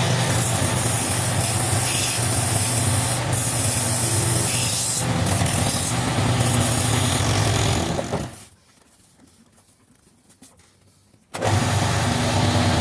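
Wood lathe running with a chisel cutting the spinning wood: a steady motor hum under a harsh scraping hiss. The sound dies away about eight seconds in and comes back abruptly about three seconds later.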